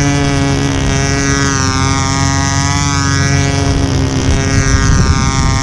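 Enya 61 two-stroke glow engine on a control-line stunt model running steadily at full power with no throttle, its propeller buzz rising and falling gently in pitch in slow waves as the plane circles. Low wind rumble on the microphone underneath.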